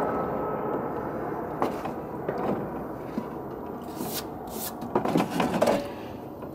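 Cast iron skillet lifted out of a vinegar-and-water rust soak in a plastic tote, water running off it, with a few knocks and scrapes of the pan against the tote, clustered near the end.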